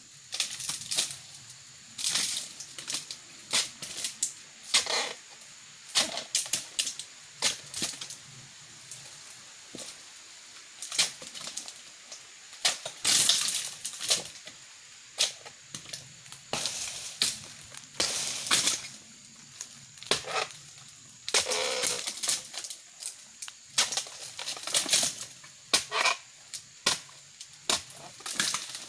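Irregular sharp chops, cracks and crunches as a long-handled pruning blade hacks old frond bases off an oil palm trunk, with dry cut fronds crackling. The strokes come unevenly, some in quick clusters.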